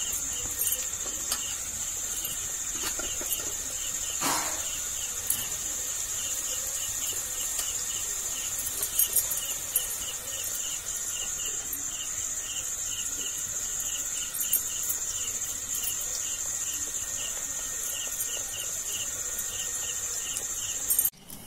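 Pieces of maida dough deep-frying in sunflower oil, a light sizzle with scattered pops. Over it runs a steady high insect trill from crickets, with a regular chirp about two or three times a second.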